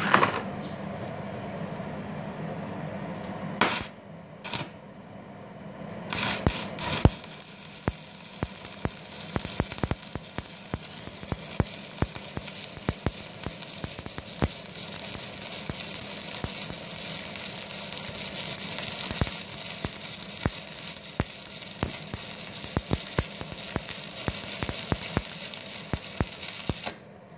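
Stick-welding arc from a 4 mm LB-52U low-hydrogen electrode on a DC inverter welder set at about 157 A. A few brief strike attempts come around four seconds in. From about six seconds in the arc burns with a steady crackle and sizzle, then cuts off just before the end.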